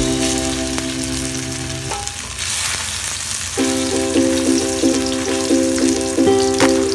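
Potato chunks frying in hot oil in a pan, a steady sizzle. Background music with held chords plays over it, dropping out for a second or so in the middle.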